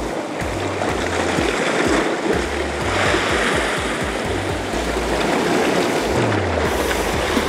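Background music with a low, pulsing bass line, over the steady wash of sea surf.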